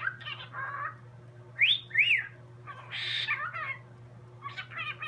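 Pet parrot chirping and whistling, with a rising whistle followed by a rise-and-fall whistle about two seconds in, like a wolf whistle, and a rougher squawk-like call around the middle.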